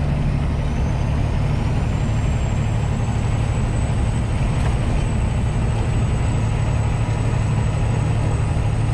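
Semi-truck cab interior while cruising on the highway: a steady low engine drone and road noise. A thin high whine rises over the first couple of seconds and then holds steady.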